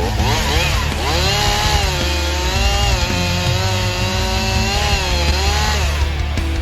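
Two-stroke chainsaw running at high revs while cutting into a tree, its engine pitch dipping and rising as it takes the load, with rock music underneath.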